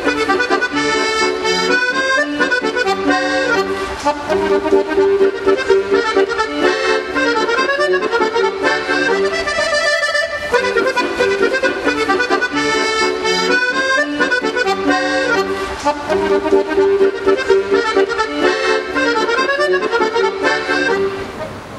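Accordion playing a melody with chords, the same phrase repeated after about ten seconds; it stops shortly before the end, leaving a low steady hum.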